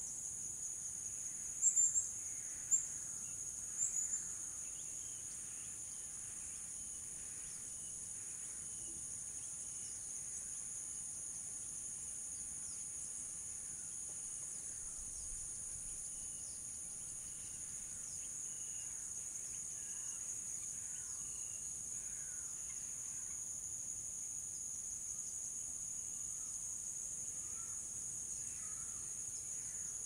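Steady, high-pitched chorus of crickets and cicadas, with scattered short bird calls through it. A few louder sharp chirps come about two to four seconds in.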